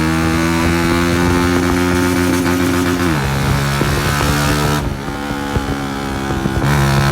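Honda CG 125's single-cylinder four-stroke engine running loud through a burst silencer that has been cut open. It holds a steady pitch that creeps up slightly, drops about three seconds in, and climbs back near the end, with the sound briefly dulled just before.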